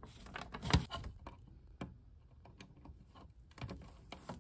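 Small scattered clicks and taps of a screwdriver and wires worked in the plastic screw-terminal block of a boiler's circuit board, with one sharper click about three quarters of a second in.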